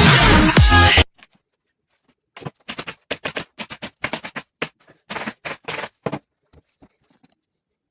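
Dance music with a steady beat that cuts off suddenly about a second in, followed by a quick irregular run of short, sharp scratchy sounds lasting a few seconds.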